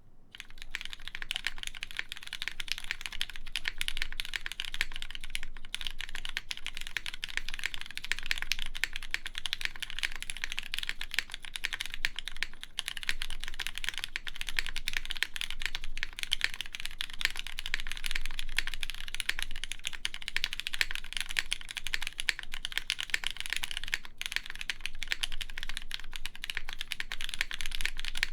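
Fast, continuous typing on a mechanical keyboard with lubed Cherry MX Black linear switches, a full polypropylene plate and GMK keycaps: a dense run of keystroke clacks with no break.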